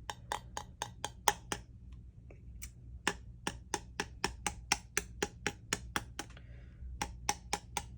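Repeated light taps on the shell of a very large chicken egg to crack it open: quick sharp knocks about four or five a second, in three runs with two short pauses.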